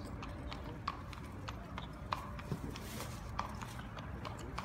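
Horses walking on stone paving, their hooves clip-clopping in sharp, unevenly spaced strikes about one or two a second.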